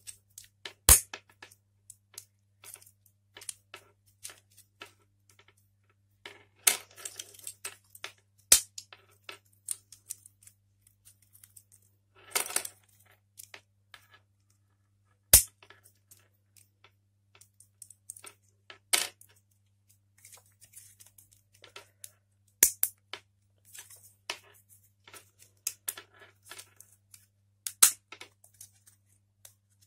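Plastic parts of an Intel stock CPU cooler fan being handled and pried apart by hand: scattered plastic clicks, snaps and rattles, with several sharper knocks as pieces strike or are set on the wooden desk. A faint steady hum runs underneath.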